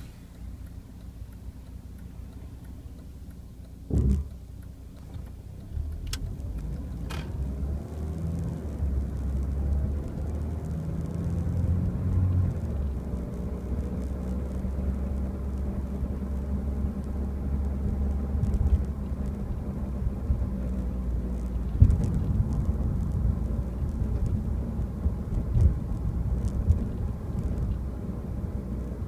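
Mercedes-Benz W202 C230 Kompressor with its supercharged four-cylinder engine: a low rumble, a loud thump about four seconds in, two sharp clicks just after, then a steady low drone that builds and holds, with an occasional knock. These are noises the owner finds annoying.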